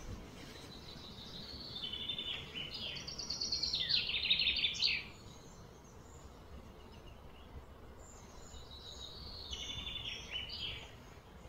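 A songbird singing a long phrase of rapid repeated notes that is loudest about four seconds in, then a shorter, similar phrase near the end, over faint outdoor background noise.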